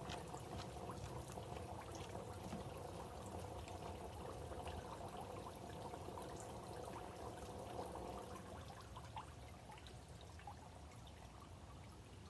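Water pouring and trickling steadily, dying down over the last few seconds as the flow is switched off.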